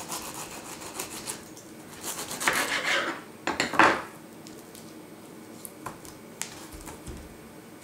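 A knife cutting lengthwise through a whole pineapple and its rind on a cutting board. There are two loud, noisy stretches, about two and about three and a half seconds in, then it goes quieter with a few light knocks.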